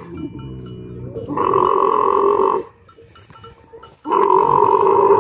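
Camel calling loudly twice, each call lasting about a second and starting and stopping abruptly, the first about a second and a half in and the second about four seconds in, with a low, quieter grumble between them.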